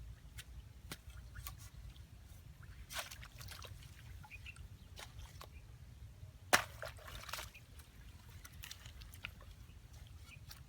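Water sloshing and splashing in short irregular strokes, with one sharp louder splash about six and a half seconds in.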